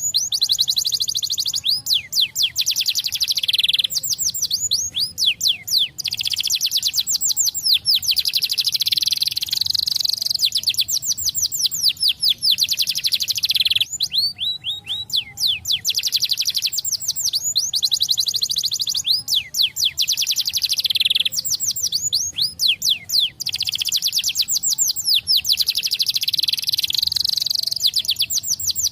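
Domestic canary singing a long song of fast trills, rapidly repeated high sweeping notes, with a few short pauses between phrases.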